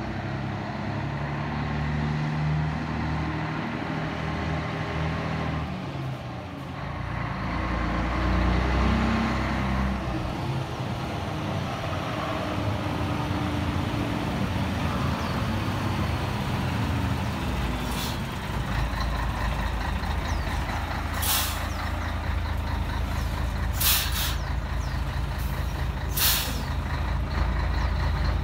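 Scania 113 Topline truck's 11-litre straight-six diesel engine pulling up and slowing, its pitch shifting as it comes in, then idling steadily from about two-thirds of the way through. Several short hisses of air from the air brakes break in over the idle near the end.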